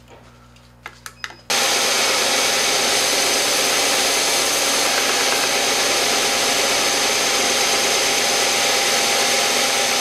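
Rikon belt sander running with a padauk marimba bar held against the moving belt: a steady sanding noise that comes in suddenly about a second and a half in, after a few faint clicks. Wood is being sanded away to lower the bar's pitch toward its target note, an E.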